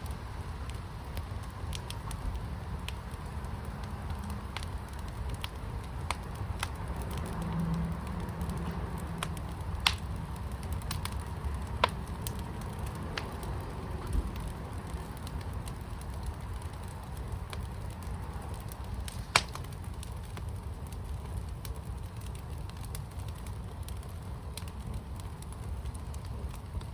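Fire burning in a firepit, crackling steadily with scattered small pops over a low rumble. Three sharper pops stand out, about ten, twelve and nineteen seconds in.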